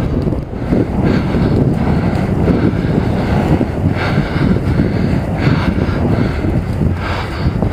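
Wind buffeting the microphone of a helmet-mounted camera on a moving mountain bike: a loud, steady, low rumble.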